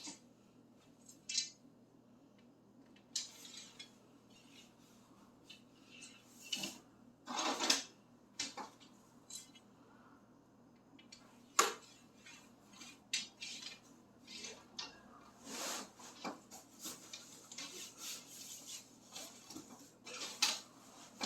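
Ice-shelter poles and the metal center hub being handled: scattered clinks and knocks with short scrapes, one sharp click about halfway through.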